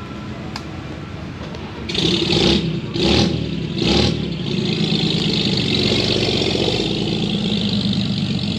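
Car engine revved in three short blips about a second apart, then held running steadily at a higher level.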